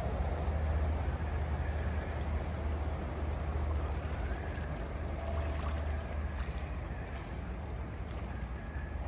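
Steady low rumble of wind on the microphone, with faint outdoor ambience behind it.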